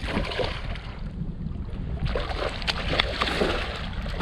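Steady wind noise on the microphone over choppy lake water, with a few short splashes and knocks against a kayak in the middle.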